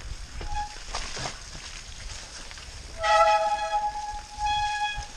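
Mountain bike brakes squealing as the rider brakes on a downhill trail: a short squeal about half a second in, a loud steady squeal about three seconds in lasting about a second, and another near the end. Under them runs the rumble and rattle of the bike over rough ground.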